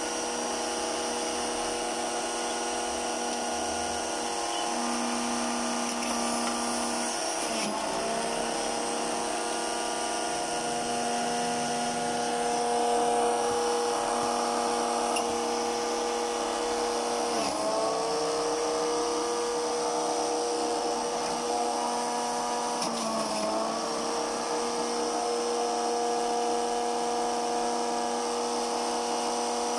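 Electric centrifugal juicer's motor running with a steady high whine. Its pitch sags briefly and recovers about four times as apple pieces are pushed into the feed chute and the motor takes the load.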